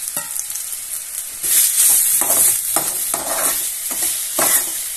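Chopped onion sizzling as it fries in hot mustard oil in a kadai, set to brown; the sizzle gets louder about a second and a half in. A spatula stirs and scrapes through it a few times.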